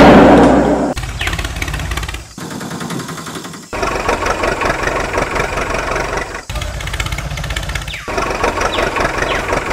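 Tractor engine sound, chugging and running in short spliced pieces that cut off abruptly every one to three seconds. Before it, a loud noise burst dies away within the first second.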